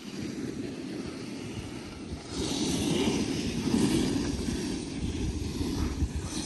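Wind rushing over the microphone and a steady rumble of riding down a groomed snow slope. About two seconds in, a louder hissing scrape of snow joins in, as from board edges carving.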